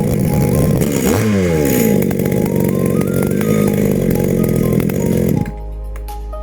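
Echo V3501 two-stroke chainsaw running after a piston ring replacement. Its engine revs up about a second in, then drops to a quieter run near the end.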